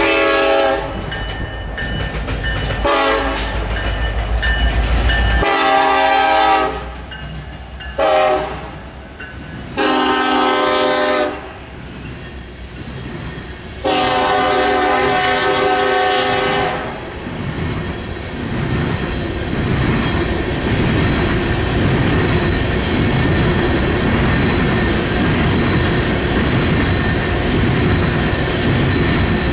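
BNSF diesel locomotives of a coal train sounding a multi-tone air horn in about six short and long blasts, the last held nearly three seconds: a road-crossing warning. Then the steady clatter and rumble of coal hopper cars rolling past on the rails.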